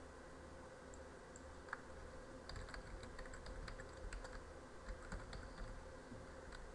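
Computer keyboard typing: a quick run of keystrokes beginning about two seconds in, over a faint steady hum.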